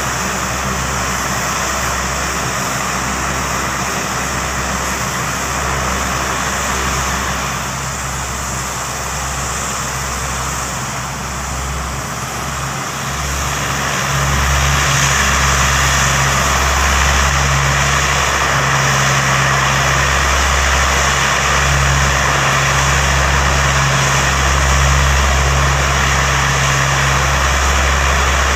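Steady drone of aircraft engines running on the airfield, with motorcycles passing on the road close by. The drone grows louder about halfway through and holds there.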